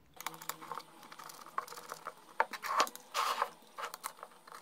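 Hands handling plastic FPV goggles and screwing their antennas on: an irregular run of small clicks, taps and rustles, the loudest a little under halfway and about two-thirds in, played at double speed.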